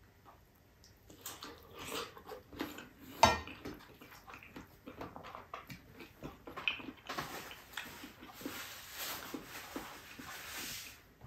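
Close-miked eating: a man chewing and smacking on rice and spicy octopus adobo eaten by hand, with many small wet mouth clicks. A sharp knock of dishware about three seconds in is the loudest sound.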